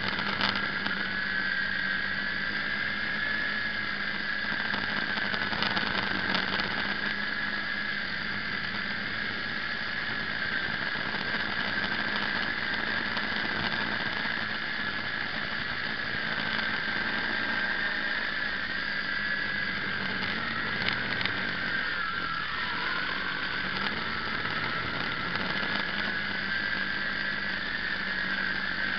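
Quadcopter's electric motors and propellers whining steadily in flight, as picked up by a camera on the craft. The pitch wavers slightly and dips briefly about three quarters of the way through, with a few brief clicks.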